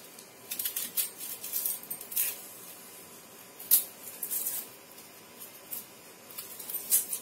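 Small kitchen knife peeling and cutting an onion held in the hand: scattered short dry scrapes and snicks of blade on onion skin, the sharpest about four seconds in.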